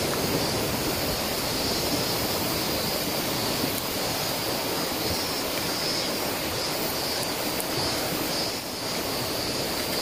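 Mountain stream rushing over stones: a steady, even rushing noise.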